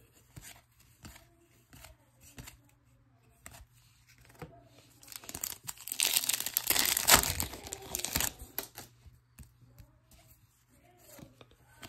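Plastic wrapper of a trading-card pack being torn open and crinkled, a loud crackling stretch of a few seconds in the middle. Before and after it come faint clicks of cards being handled.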